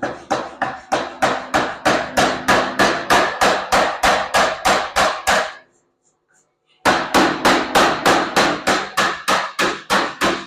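Rapid, even hammer blows, about four a second, on a hot layered billet of 1095 and 15N20 steel being forged for Damascus, with the anvil ringing under each strike. The hammering stops for about a second in the middle, then resumes and stops again near the end.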